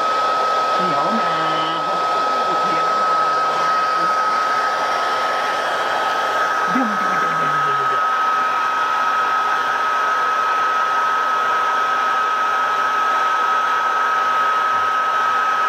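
Loud, steady whir of an electric appliance with a constant high-pitched whine, running without a break.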